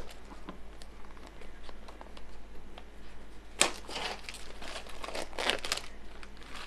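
Clear plastic shrink wrap crinkling and tearing as it is peeled off a cardboard box, with scattered crackles and a louder flurry of crinkling about halfway through.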